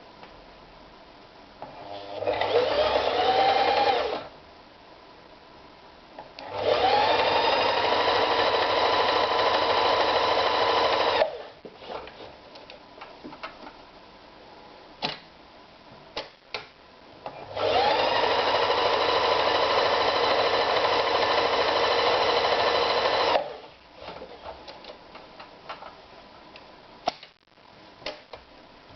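Toyota EX 390 sewing machine stitching in three runs: a short one about two seconds in, then two longer runs of about five seconds each. The motor speeds up with a rising whine at the start of each run, and scattered clicks and taps fall in the pauses between.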